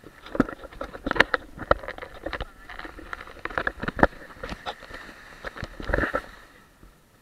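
Handling noise from an SJCam action camera: irregular knocks, clicks and rubbing on its body as it is held and moved, dying away near the end.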